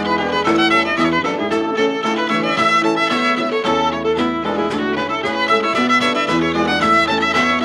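Cape Breton fiddle playing a hornpipe in quick, even runs of notes over a low sustained accompaniment, from an old LP recording.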